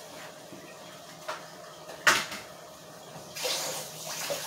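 A small click and then a sharper knock about two seconds in, the knock the loudest sound, then a kitchen tap turned on near the end, water running steadily.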